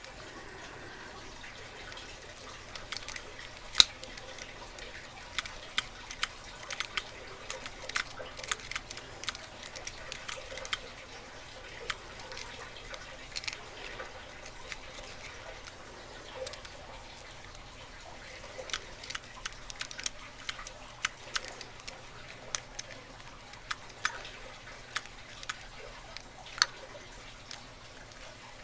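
Lock pick and tension wrench working in a lock: irregular small metallic clicks and scrapes over a steady low hiss, with one sharper click about four seconds in.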